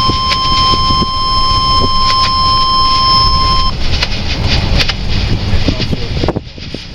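NOAA Weather Radio tornado-warning alert tone, one steady high beep heard through a radio speaker, cutting off abruptly a little under four seconds in. The tone is the signal that a warning message follows. Vehicle road rumble with small clicks and knocks runs under it and carries on alone after the tone stops.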